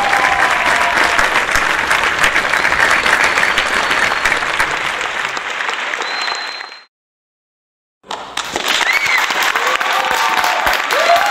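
Crowd applause: dense clapping with cheering voices. It fades out about seven seconds in, and after a second of silence a new burst of crowd clapping and cheering starts, with shouts that rise and fall in pitch.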